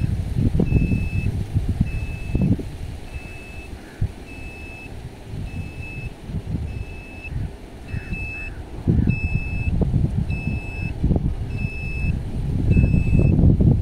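A truck's reversing alarm beeping steadily, a single high tone a little faster than once a second, over an uneven low rumble that swells near the end.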